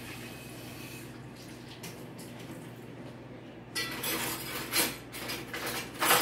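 Kitchenware being handled, clattering off and on in the second half with sharp knocks about five and six seconds in, over a steady low hum.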